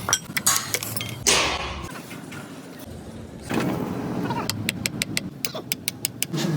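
Workshop work on metal truck parts: a run of sharp metal clinks and knocks, with a short noisy burst a little over a second in and a longer noisy stretch from about halfway.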